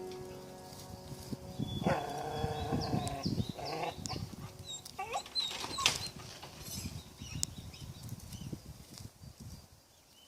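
A dog whining and yelping in a few short, pitched calls over the first six seconds or so, then quieter.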